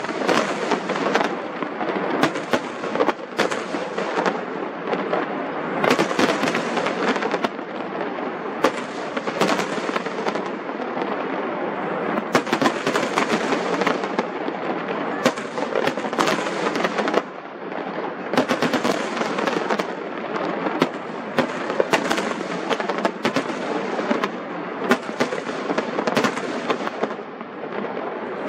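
Aerial firework shells bursting in a continuous barrage: many sharp bangs over a dense, unbroken crackle.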